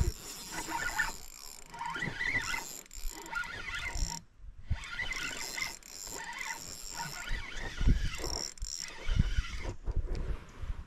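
A fishing reel is being cranked in short stretches, its gears whirring and clicking as the line is wound in. There are a few dull knocks near the end.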